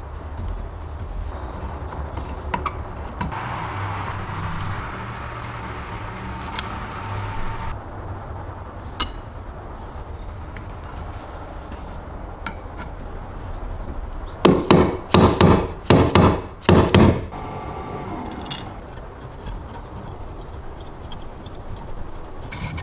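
Small clicks and handling noises on a work surface, then a quick run of about five loud, sharp knocks about half a second apart, past the middle.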